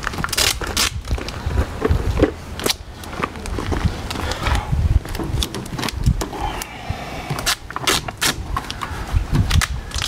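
Adhesive tape being pulled off the roll and torn in short crackling strips, and pressed onto the metal case of a small microwave oven, with scrapes and knocks of handling throughout.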